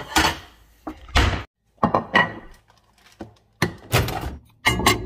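A series of separate knocks and thuds from things being handled in a kitchen, with a couple of sudden dead-silent gaps.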